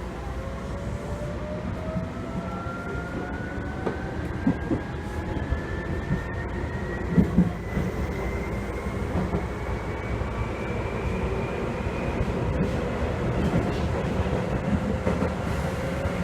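Seibu 2000 series electric train car running and picking up speed: its drive whine rises steadily in pitch over a low rolling rumble, with a few short knocks from the wheels. This car is producing an abnormal running noise, which the uploader suspects is resonance.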